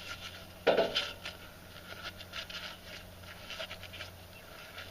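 Gloves being peeled and pulled off sticky hands: irregular faint rustling and scratching, with one louder short sound a little under a second in.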